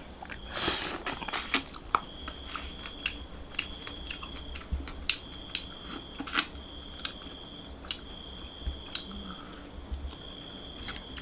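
A person chewing and biting pieces of chicken curry, skin-on meat eaten by hand, with many short wet mouth clicks and smacks scattered throughout. A faint high steady whine comes and goes in the background.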